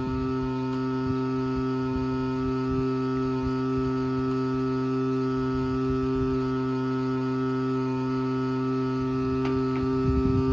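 Washing machine's water valve giving a steady hum with several overtones while the washer is switched off, a fault the owner puts down to a broken water valve.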